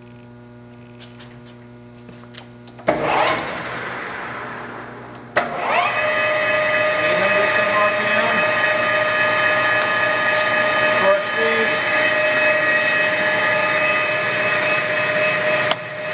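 Acer 2060G gap bed lathe running under power: it starts suddenly about three seconds in, and after a click settles into a loud steady gear whine with several fixed tones, which dips briefly near the end.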